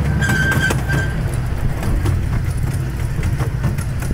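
Small park ride train's engine running steadily, a low rumble, with light clicks and rattles from the cars on the track.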